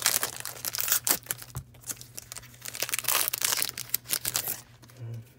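Foil wrapper of a Yu-Gi-Oh booster pack being torn open and crinkled by hand: a dense crackling with many sharp crinkles, which stops about four and a half seconds in.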